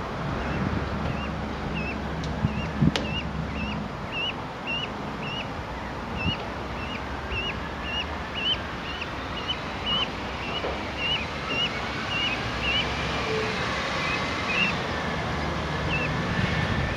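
Canada goose goslings peeping: a steady series of short, high peeps about two a second, over wind noise on the microphone.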